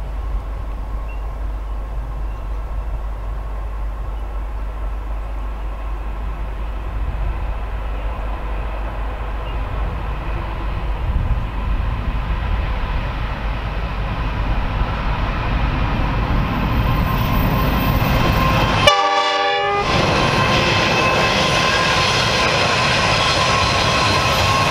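Three NR class (GE Cv40-9i) diesel-electric locomotives hauling a container freight train approach. Their engine rumble grows steadily louder as they draw near, with steady tones coming in over the last few seconds.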